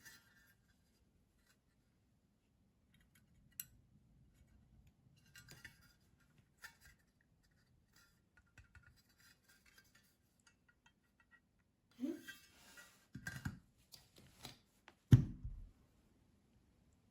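Quiet, scattered clicks and scrapes of tools and small parts being handled, then several louder knocks near the end.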